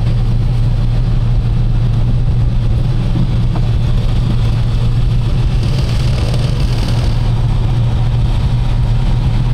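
Semi-truck diesel engine idling: a steady low drone heard from inside the cab.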